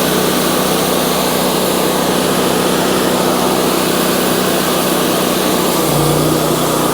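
Wood-Mizer LT40 sawmill's 26.5-horsepower engine running steadily, with a deeper hum joining about six seconds in.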